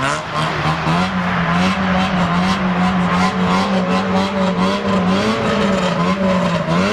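Rally car engine running hard at high revs, its pitch climbing at the start, then holding with a slight waver and dipping near the end.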